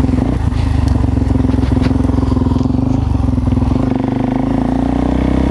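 Suzuki DR-Z supermoto's single-cylinder four-stroke engine running steadily under way, its pitch rising slightly in the second half.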